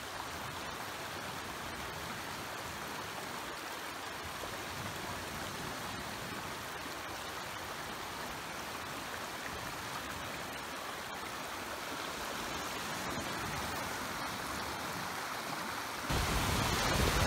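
Shallow rocky stream running over stones, a steady rush of water. About a second before the end it cuts to a louder sound of lake waves on a pebble beach, with wind on the microphone.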